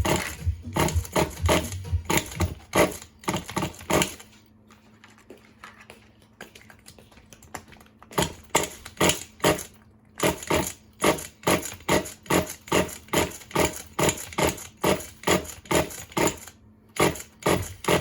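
Starter motor cranking the flooded engine in three tries: about four seconds, a pause, then a short try and a longer one of about seven seconds, each with even compression pulses about two and a half a second. The engine doesn't catch; it is flooded with fuel, and the slow cranking is what the owner suspects is a weak battery.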